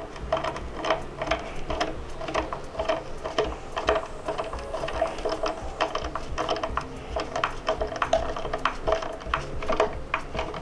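Hand ratcheting screwdriver driving a wood screw into a pilot hole in a wooden speaker cabinet: the ratchet clicks over and over as the screw is turned in short strokes.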